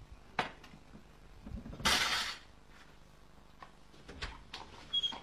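Frying pan and plates clattering: scattered knocks and clinks of crockery, with a louder half-second of noise about two seconds in and a short ringing clink near the end.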